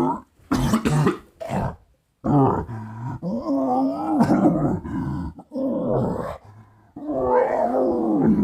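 A man's voice doing an exaggerated, drawn-out coughing fit. A few sharp hacking coughs come first, then long, strained, groaning coughs, several in a row with short gaps between them.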